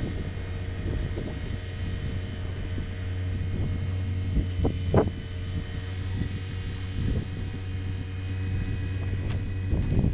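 A steady low engine drone with an even hum running through it, and a few brief knocks, the sharpest about five seconds in.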